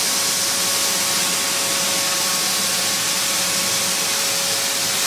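Combined grain cleaning machine running steadily: an even hiss of air and grain with a steady hum tone under it.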